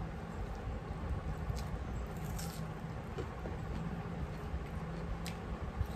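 Rice and curry being mixed by hand on metal plates: soft squishing with a few faint clicks, over a steady low hum.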